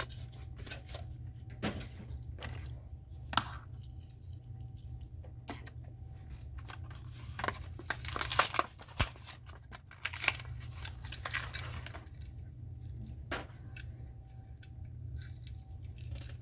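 Die-cast toy car blister packs being torn open by hand: card tearing and plastic crinkling, with scattered clicks and two longer tearing bursts about eight and ten seconds in, over a steady low hum.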